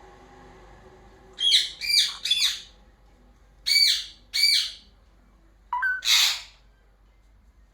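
Pet rose-ringed (ringneck) parakeet squawking: a quick run of three sharp calls, then two more, then a harsher screech about six seconds in.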